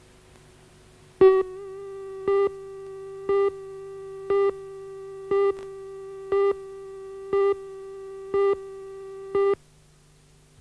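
Broadcast videotape countdown leader: a steady mid-pitched tone starting about a second in, with a louder beep once a second, nine times, cutting off about a second before the end.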